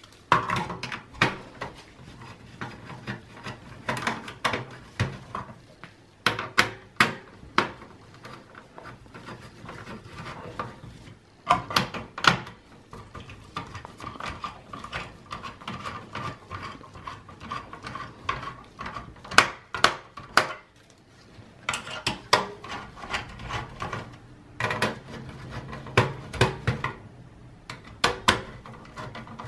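Irregular clicks, taps and light clatter of a screwdriver turning the screws of a desktop PC's CPU cooler, with the tool and parts knocking against the sheet-metal chassis.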